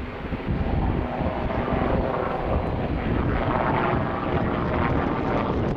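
Sikorsky S-76A twin-turbine helicopter flying overhead after takeoff, its rotor and turbine noise growing louder about half a second in and strongest around three to four seconds in. Wind buffets the microphone underneath.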